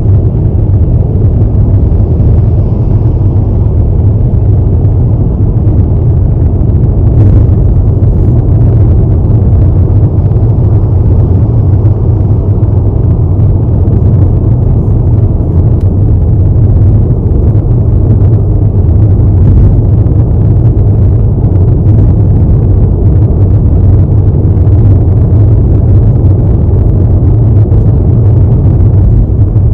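A car driving steadily at speed on a highway: a loud, even, low rumble of road, tyre and wind noise that holds without change.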